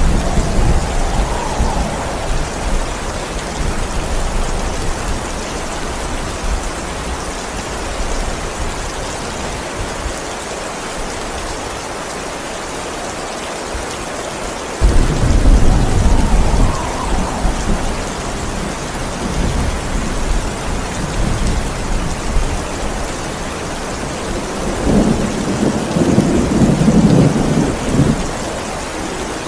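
Steady rain falling through a thunderstorm, with thunder: a sudden loud crack and rumble about halfway through that dies away over a few seconds, and another rolling rumble near the end.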